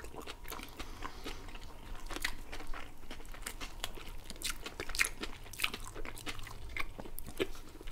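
Close-miked chewing of homemade shawarma wraps, with frequent short mouth clicks and soft crunches as they bite and chew.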